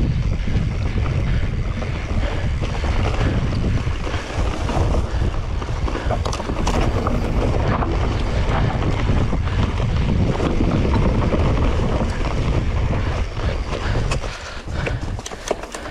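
Wind buffeting the microphone: a heavy low rumble under a steady rushing noise, with a few sharp knocks about six to seven seconds in, easing off near the end.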